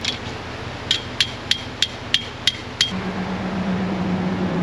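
Thin steel stake being driven into rocky ground: about seven sharp metallic strikes, roughly three a second, each with a short high ring. A steady low hum starts about three seconds in.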